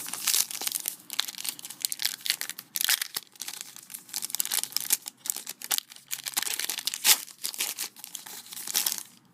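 Foil wrapper of a trading card pack being torn open and crinkled by hand, with irregular crackling that stops near the end.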